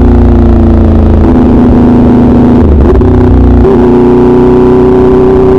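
Motorcycle engine running loud through an SC Project aftermarket exhaust while riding. Its note dips and steps up in pitch a few times over the first four seconds, then climbs slowly and steadily.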